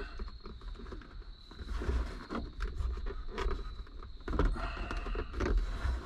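Hands working a plastic switch-panel mount and its wiring cord against a truck's headliner: irregular scraping, rustling and light clicks.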